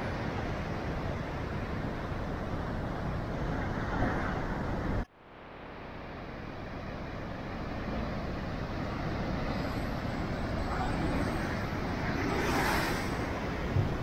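Heavy surf breaking on rocks: a steady roar of waves and churning white water. About five seconds in the sound drops away abruptly and builds back over a few seconds, and a louder wave crash comes near the end.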